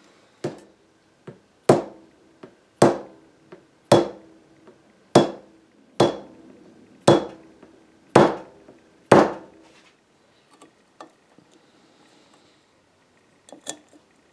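A hammer tapping thin wood shims into the gap between a wooden table-leg post and its socket to wedge a loose joint tight. There are about nine sharp strikes, roughly one a second, with a couple of lighter taps among them. The strikes stop about nine seconds in, and a few faint clicks come near the end.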